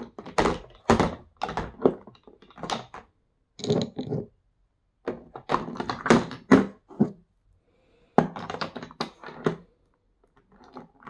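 Glass nail polish bottles being handled: a run of knocks and clinks as bottles are picked up, knocked together and set down on a table, in several bursts separated by short pauses.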